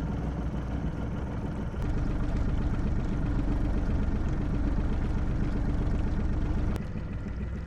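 Boat's outboard motor running steadily at trolling speed. It gets louder about two seconds in and drops back near the end.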